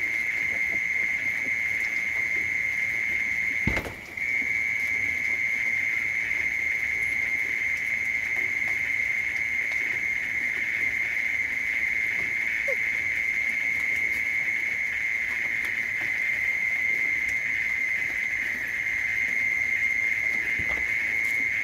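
A steady, high-pitched continuous hum, broken once by a click and a brief drop-out about four seconds in.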